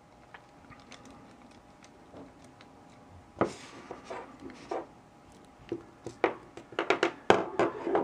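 Light clicks and taps from a small screwdriver and a plastic-bodied LOTO padlock being handled as the screw inside the shackle hole is backed out. A close run of sharp clicks comes near the end as the tools are set down on the table.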